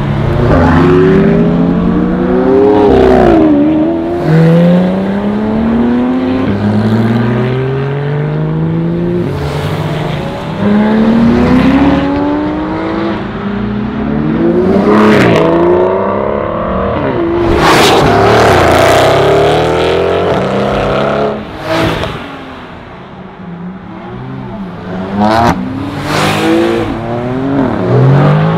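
Supercar engines accelerating hard one after another, each climbing in pitch through the gears and dropping back at every upshift, with sharp cracks between shifts and cars passing close by. It goes quieter for a couple of seconds about three-quarters of the way in.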